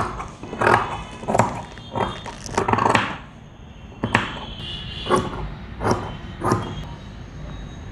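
Tailor's scissors cutting through saree cloth: a series of crisp snips, roughly one every two-thirds of a second, with a short pause in the middle.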